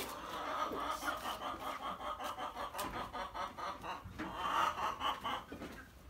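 Chickens clucking in a fast, stuttering run of short notes, with a louder cluster of clucks about four seconds in.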